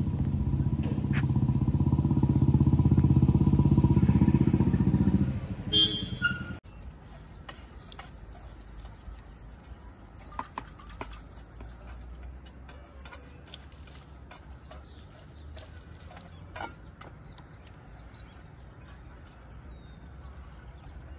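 A motor vehicle's engine running loudly for about six seconds, then cutting off suddenly. After it comes quiet open-air ambience with a steady high-pitched insect drone and a few faint clicks.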